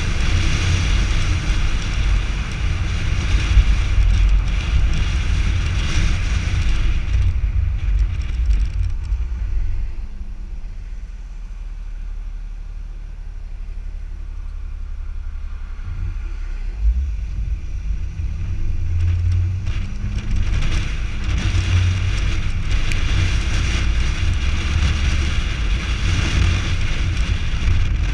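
Wind buffeting the microphone and tyre and road noise from a camera mounted outside a moving car, low beside the front wheel. The noise drops for several seconds in the middle while the car waits at a junction, then rises again as it pulls away.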